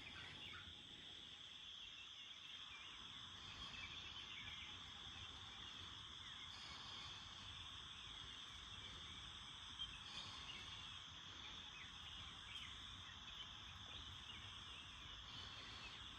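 Faint chorus of crickets and other night insects, a steady high-pitched trill.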